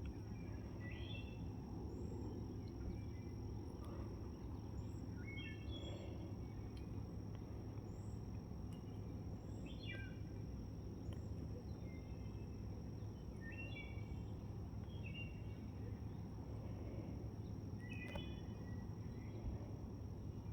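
Birds calling over and over, short chirping notes every second or two, over a steady low rumble and a thin steady high whine.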